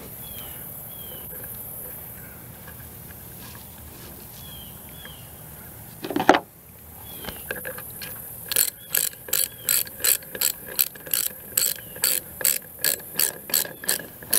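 Hand ratchet wrench clicking about three times a second through the second half, cranking a hot-dip galvanized 5/16-inch by 4-inch lag bolt into a timber brace by hand. A single loud knock comes a little before the clicking starts.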